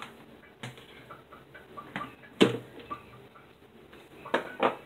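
Plastic knocks and clacks from a Ninja blender being taken apart after blending: the motor head is lifted off the jar and set down. There is one sharp knock about halfway through and two more close together near the end, with no motor running.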